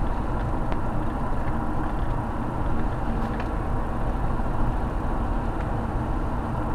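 Steady road and engine noise heard from inside a moving car: a constant low rumble of tyres on the sealed road and the engine running at cruising speed.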